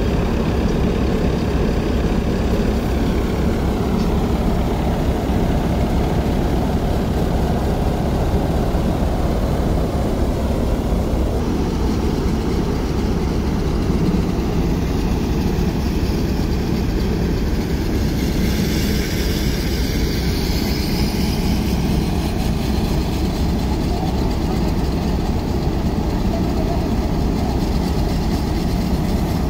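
Tractor-driven thresher running steadily as crop stalks are fed in: a continuous mechanical drone from the threshing drum and drive, over the Fiat tractor's engine working to power it through the drive shaft. The tone shifts slightly about a third of the way through.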